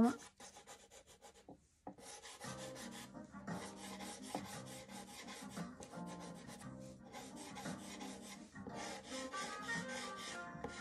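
Pastel pencil scratching in quick, short strokes over gritty, sandpaper-like Clairefontaine Pastelmat paper, with faint music underneath from about two seconds in.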